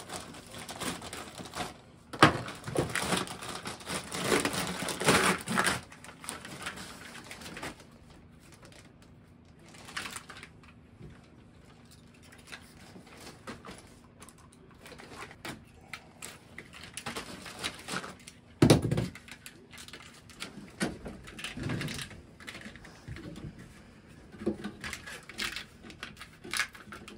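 Plastic packaging crinkling and rustling for a few seconds as red split wire loom is unwrapped. Then come quieter scattered clicks and rustles of the plastic loom being fitted over the cables, with one sharper thump about two-thirds of the way through.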